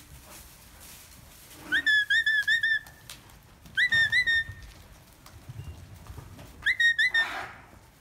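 Sheepdog handler's herding whistle commands: three short phrases of quick, high notes, each note flicking up and then holding, with about five notes in the first phrase and three in each of the next two.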